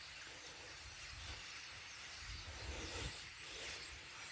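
Faint, steady chattering din of a huge flock of birds massed in trees, thousands of calls blending into an even hiss.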